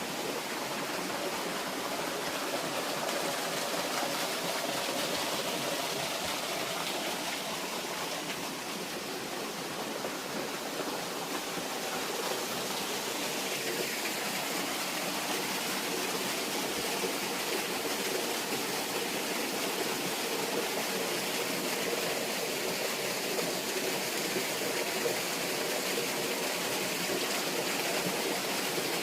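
Rushing water of a woodland stream or cascade, a steady, even hiss.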